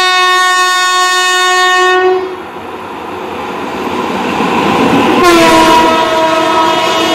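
Indian Railways WAP5 electric locomotive sounding its horn in a long blast that ends about two seconds in, while the running noise of the approaching express builds. A second horn blast comes about five seconds in, its pitch dipping slightly at the start, as the locomotive reaches the camera and the coaches begin to rumble past.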